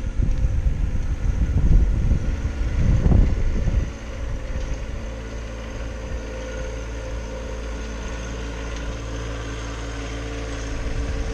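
An engine idling steadily. For the first four seconds a louder, gusty low rumble rides over it.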